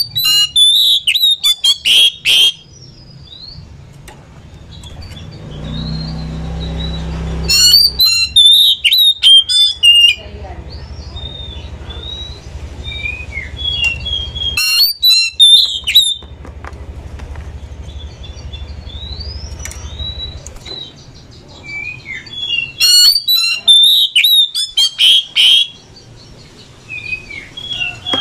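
Oriental magpie-robins (kacer) singing: four loud bursts of fast, harsh chattering song, each a second or two long, with softer whistles and short chirps in between.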